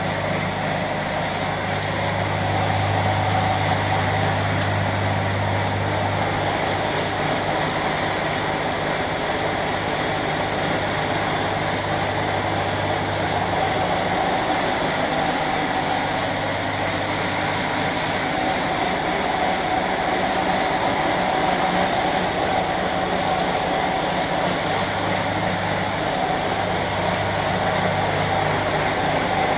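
Air compressor running steadily while a paint spray gun hisses in on-and-off bursts as its trigger is pulled.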